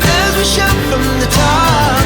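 Background music: a song with a sung melody over a steady bass accompaniment.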